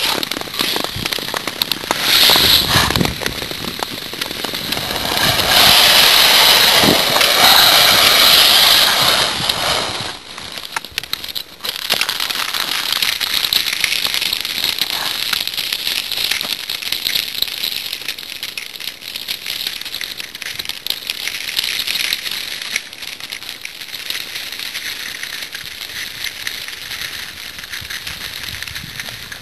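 Ice skate blades gliding and scraping over natural lake ice, with a dense crackle. It is loud and hissy for about the first ten seconds, then turns quieter with a steady fine crackling.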